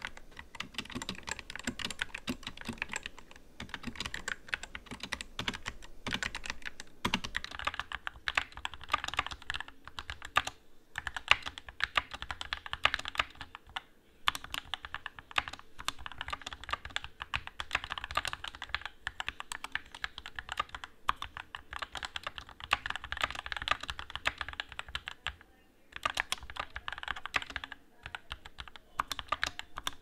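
Fast continuous typing on a Skyloong GK61 60% mechanical keyboard: first the stock board, then, after a change about a quarter of the way in, the lubed and clipped build with PBT keycaps, where the space bar is still too rattly.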